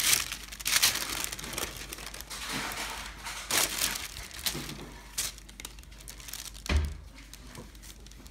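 Clear plastic bag crinkling and rustling as hands handle and spread it, busiest in the first few seconds and thinner later, with one dull thump near the end.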